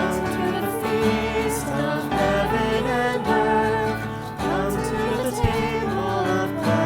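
Christian worship song with voices singing over acoustic instruments.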